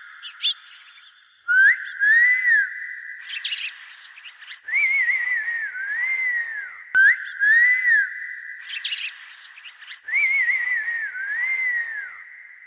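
A whistled tune in repeated phrases of rising and falling notes.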